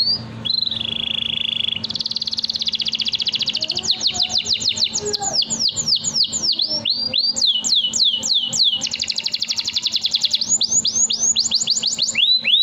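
Domestic canary singing a long unbroken song: rapid buzzing trills alternating with runs of quick, sharply falling whistled notes, several a second.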